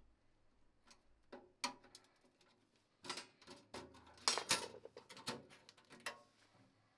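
Thin stainless-steel sheet metal being handled: light clicks, knocks and clatter as the stove box and its hinged lid are moved and shut, thickest and loudest about four to five seconds in.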